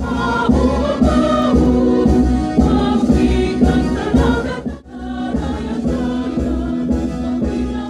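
A choir singing together into microphones, amplified, with a short break in the sound about five seconds in.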